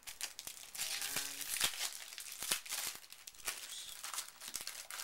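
Plastic Yu-Gi-Oh booster pack wrappers crinkling and tearing as several stacked packs are ripped open by hand, in a run of irregular crackles.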